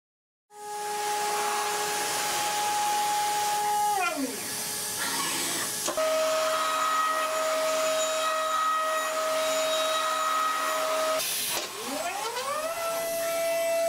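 Datron high-speed CNC milling machine cutting aluminium: its spindle whines at a steady pitch over a hiss. It comes in suddenly about half a second in. About four seconds in the whine glides down and settles on a new steady tone, and near the end it dips and climbs back up.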